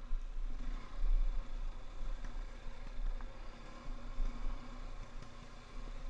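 Off-road motorcycle engine running at a fairly steady pitch while the bike rides a dirt trail, over a deep, uneven rumble of wind and bumps.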